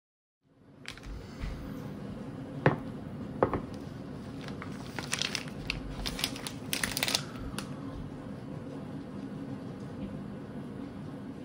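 Two sharp knocks a little under a second apart, then the crinkling of a plastic-wrapped spaghetti packet as it is set down on a wooden cutting board. A steady low hum runs underneath.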